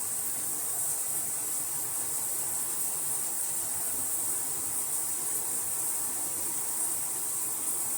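Shower running: a steady, even hiss of water spray.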